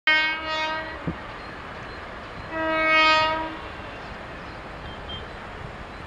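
Horn of an Indian Railways WAP4 electric locomotive sounding two blasts of about a second each, the second starting about two and a half seconds in.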